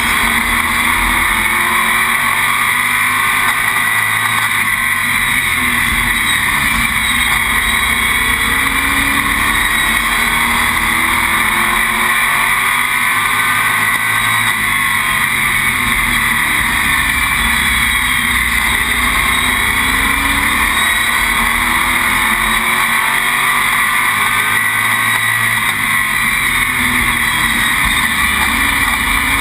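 Oval-track race car's engine heard from inside the cockpit at racing speed, loud and continuous, its pitch falling and climbing again in a cycle about every ten seconds as it laps.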